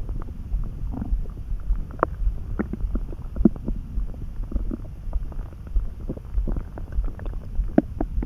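A person's stomach rumbling: a steady low gurgle with many short pops scattered through it, a few louder ones standing out.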